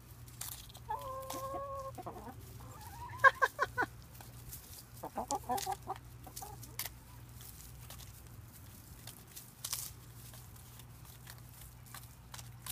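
Hens clucking: a drawn-out call about a second in, then two quick runs of clucks, followed by scattered light taps of beaks pecking at a hanging cabbage.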